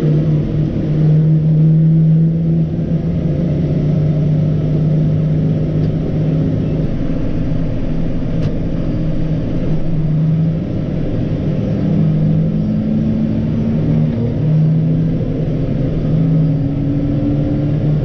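New Holland T7.210 tractor's six-cylinder diesel engine running steadily as the tractor drives along the road, heard from inside the cab. The engine note drops briefly about ten seconds in, then climbs in pitch again.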